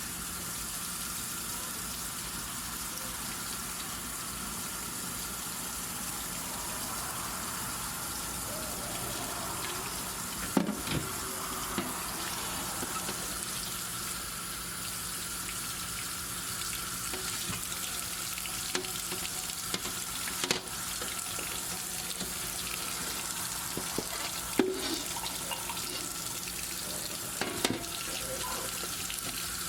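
Kitchen tap running steadily into a sink, with a few short knocks and clatters of items being handled, the loudest about a third of the way in and again near the end.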